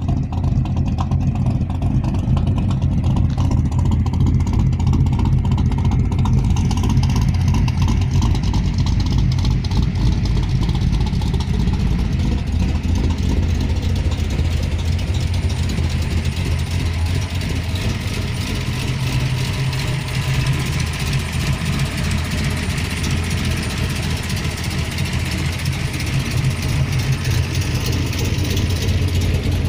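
Mopar V8 engine with a four-barrel carburettor idling steadily, heard through its dual exhaust.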